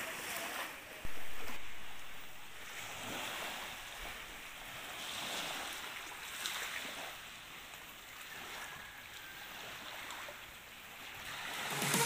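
Small waves washing gently on a pebbly sand shore, with wind on the microphone. The sound jumps louder about a second in, then swells and eases slowly.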